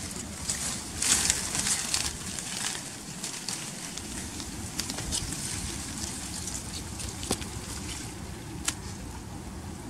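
Water splashing and sloshing in a cluster of short crackly bursts over the first few seconds, then a few isolated sharp clicks over a low steady rumble.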